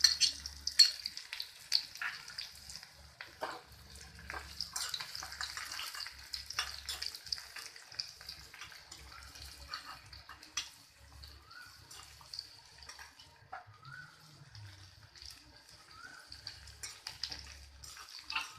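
Small onions frying in hot coconut oil in a pan: a steady high sizzle that slowly fades, with scattered clicks of a spoon stirring against the pan.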